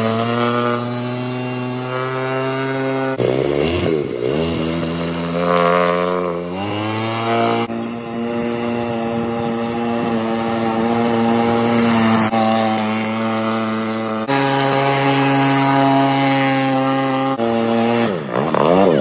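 Rusi 125 motorcycle engine, a 125 cc single-cylinder, driving a small boat at speed: a steady, loud buzzing drone. Its pitch dips and climbs again a few times and jumps abruptly at several points.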